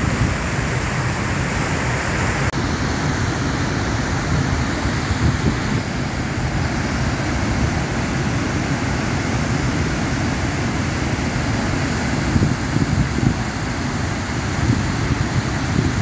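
Steady rushing of a river waterfall swollen with floodwater and the churning rapids below it, with wind buffeting the microphone.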